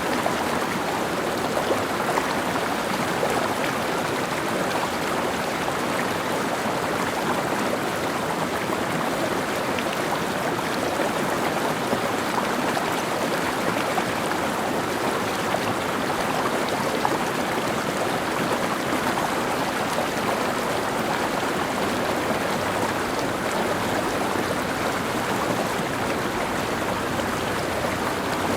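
Mountain stream flowing steadily over rocks, a continuous rushing and babbling of water.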